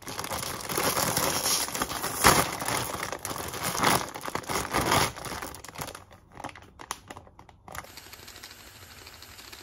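Crinkly plastic wrapping of an instant-ramen multipack rustling and crackling as it is handled, densest in the first five seconds, then thinning to scattered rustles. Near the end there is only a faint steady hiss.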